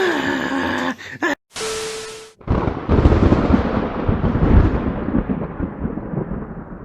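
Thunder: a loud crack about two and a half seconds in, then a rolling rumble that slowly fades over about four seconds.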